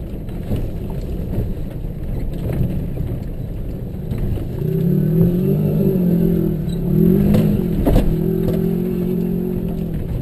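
4x4 SUV driving slowly over a rocky riverbed: a steady rumble of engine and tyres on gravel. From about halfway through, the engine's pitch rises and falls several times as the throttle goes on and off. Two knocks come near the end as the vehicle jolts over rough ground.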